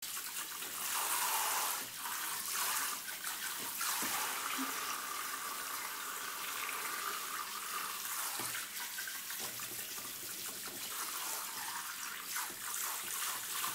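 Water spraying steadily from a handheld shower head onto a cat's wet fur and into a plastic basin.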